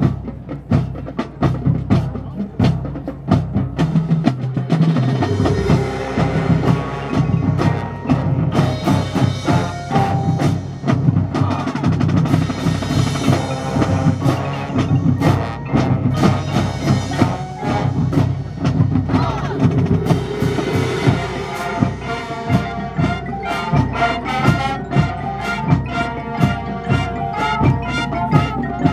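Marching band playing, led by percussion: a steady stream of drum strokes under pitched parts, with a busier melody building in the second half.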